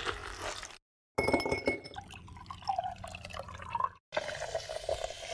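A wooden muddler pressing fruit pulp in a glass beaker, then liquid pouring into the glass with a pitch that rises as it fills, and ice clinking against the glass. The sounds come in short snippets broken by abrupt gaps.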